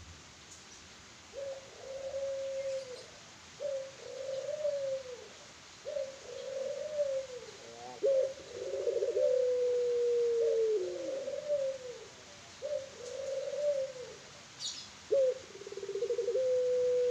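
Young puter pelung, a long-cooing domestic ringneck dove, cooing over and over: a string of low coos about a second each, with two long drawn-out coos that slide down in pitch at their ends, one about eight seconds in and one near the end.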